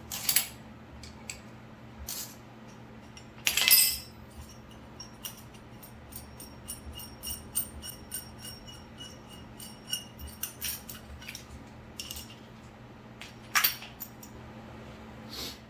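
Metal hand tools and parts clinking and clattering: a few sharp knocks, then a run of quick ringing metallic clicks through the middle.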